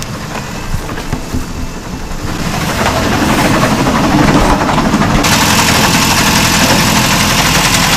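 Sailboat's inboard engine running in gear. It gets louder partway through and brighter a couple of seconds later, heard up close inside the engine compartment. The owners hear a clunky vibration and banging with the propeller engaged and do not know its cause.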